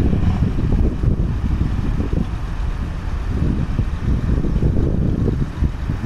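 Diesel engine of a mobile crane running steadily, a low rumble, while a steel girder hangs on the hook.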